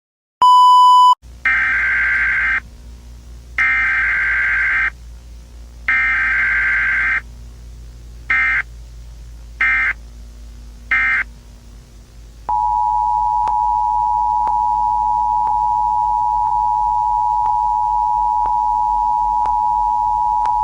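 Emergency Alert System tones. A short high beep comes first, then three long and three short bursts of the screeching SAME digital header data. About twelve seconds in, the steady two-tone EAS attention signal begins and holds for about eight seconds.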